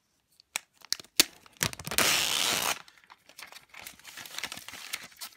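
Clear plastic shrink wrap being torn and peeled off a cardboard watch box. A few sharp crackles come first, then a loud tearing rip lasting under a second, about two seconds in, then softer crinkling as the plastic is pulled away.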